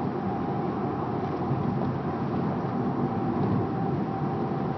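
A car driving, heard from inside the cabin: a steady low rumble of engine, tyres and wind.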